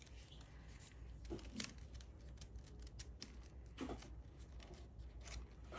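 Origami paper being folded and creased by hand, rustling faintly with a few soft crackles.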